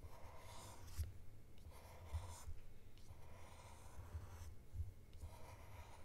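Fine-point Sharpie permanent marker drawing on smooth polypropylene film: a faint scratchy rubbing in a series of short strokes with brief pauses between them.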